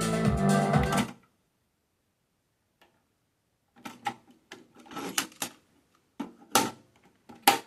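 Music playback cuts off abruptly about a second in, then, after a pause, a series of short mechanical clicks and clunks from the Pioneer CT-S530 cassette deck's controls and tape mechanism, the loudest two near the end.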